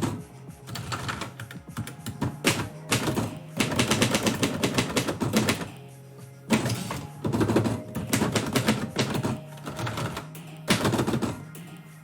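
Typewriter keys struck in quick runs of clacks with brief pauses between them, as lines of a poem are typed, over background music.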